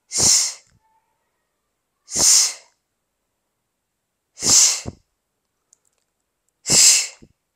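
A woman's short, breathy exhalations through the mouth, four of them about two seconds apart, one with each rep of a single-leg glute bridge.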